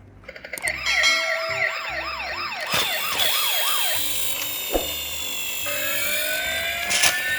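Several electronic sirens of toy police cars and ambulances sounding at once. A fast up-and-down yelp, about three cycles a second, gives way after about four seconds to overlapping rising wails, with a few sharp clicks among them.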